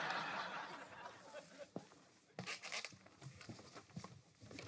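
Sitcom laugh track of audience laughter, fading out over the first second or so, followed by a few scattered footsteps on the floor.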